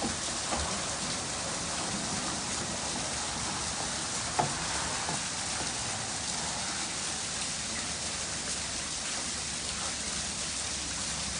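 A steady, even hiss with one short sharp tap about four and a half seconds in.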